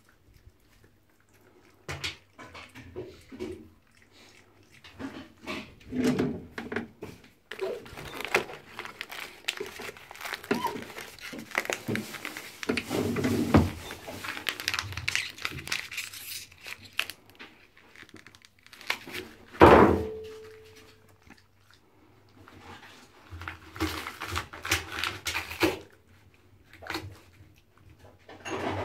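A pet red fox moving about in an empty bathtub: scattered knocks and scrapes, with a stretch of paper rustling in the middle. About twenty seconds in, a sharp knock makes the tub ring briefly.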